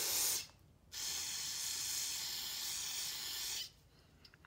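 Aerosol cleaner sprayed through an extension straw into a corroded, rusty brake master cylinder to flush out the grime. It hisses in two bursts: one that stops about half a second in, then a longer one from about a second in that cuts off a little before the end.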